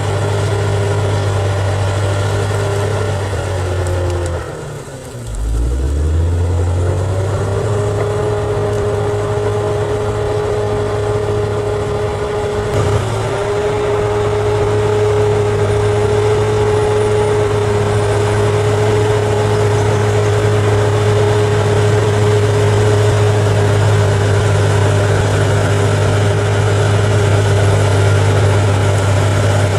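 Bulldozer's diesel engine running steadily with a whine that follows its speed. About four and a half seconds in, the engine drops sharply in speed and loudness, then picks back up over the next two seconds and holds.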